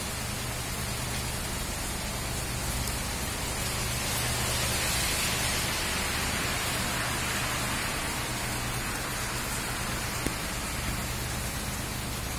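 Steady rain falling, an even hiss that grows louder for a few seconds around the middle.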